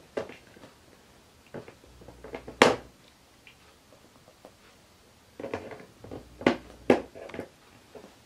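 A cat knocking and scraping at a clear plastic storage case: irregular sharp taps and clatters of plastic, the loudest about two and a half seconds in, with a quick run of them after five seconds.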